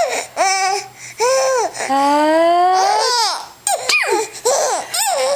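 A five-month-old baby laughing in about five high-pitched bursts. About two seconds in comes one longer laugh that rises in pitch for about a second.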